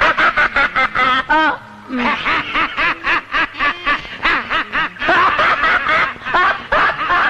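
Loud laughter in rapid, rhythmic bursts, with a brief pause about two seconds in.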